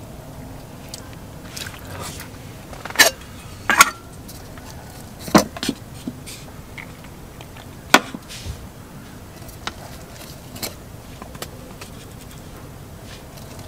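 Camp cookware and tableware being handled: several sharp clinks and knocks in the first eight seconds as the camping pot's lid is taken off and set down, then softer scraping as rice is scooped from the pot into a wooden bowl.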